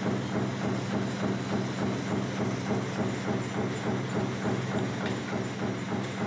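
Razor wire production machinery running: a steady hum with fast, even clattering.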